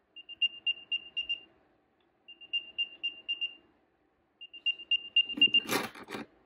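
Apple AirTag playing its locating sound through its built-in speaker: three runs of quick, high beeps, each run about a second long. Near the end a hand picks up the keyring and the keys clatter loudly.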